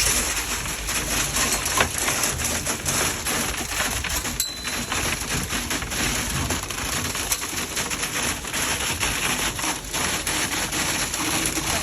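Wet concrete being pumped and placed in a foundation footing: a steady rushing, spattering noise with many small clicks.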